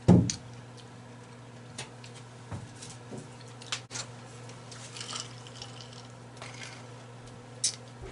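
A heavy thump at the very start, then scattered light clicks, taps and paper rustling from handling a paper napkin and a takeout seafood tray, over a steady low hum.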